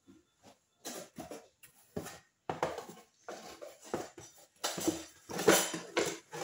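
Objects being handled and set down on a table: an irregular series of knocks, clinks and rustles, loudest about five seconds in.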